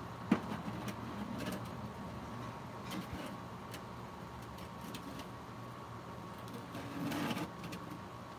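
Handling noise: scattered small clicks and rustles, with one sharp click just after the start and a longer rustle about seven seconds in, over a faint steady hum.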